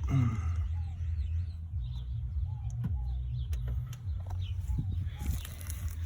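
Small birds chirping again and again, short rising-and-falling notes, over a steady low rumble.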